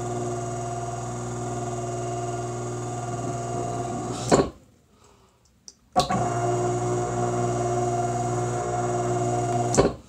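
Furnace blower motor running on the bench with a steady electrical hum and some knocking, which the owner puts down to worn bearings. Its power is cut with a click about four seconds in, it comes back on with a click about a second and a half later, and it cuts off again near the end.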